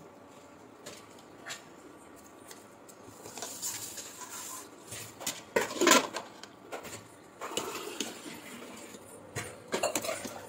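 Perforated steel ladle clinking and scraping against an aluminium pot while stirring a wet mixture, in scattered irregular strokes with one louder clank about six seconds in.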